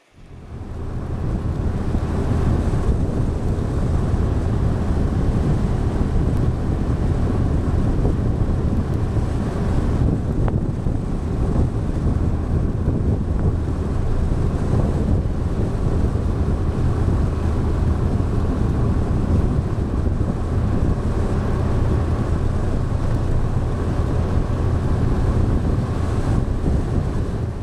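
Scooter engine running at a steady cruise, heard from an onboard camera with loud wind rushing on the microphone. The sound comes up quickly in the first second and then holds steady.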